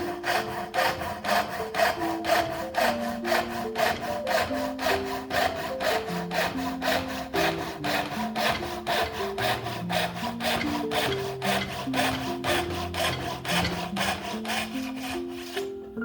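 Hand saw with its teeth filed for rip cutting, sawing through wood in quick, even push-and-pull strokes of about three a second.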